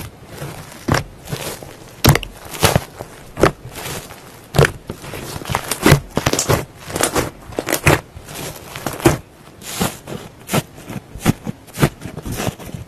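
Hands squeezing, pressing and poking fluffy slime, giving a run of sharp crackling pops at uneven intervals, about one or two a second.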